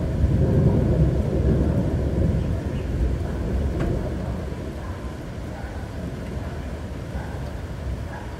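Low rolling rumble of thunder that swells about a second in and then slowly dies away.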